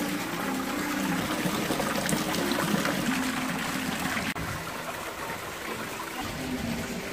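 Water from three wall spouts splashing steadily into a stone-edged pond, with a brief break about four seconds in.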